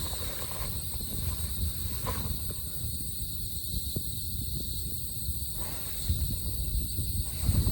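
Steady high-pitched drone of forest insects in several even bands, over a low rumble with scattered soft knocks and a few light clicks.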